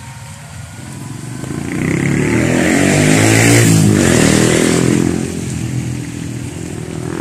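A motor vehicle passes close by on the wet road: its engine and tyre hiss swell to a peak midway, the engine pitch drops as it goes past, and the sound fades away.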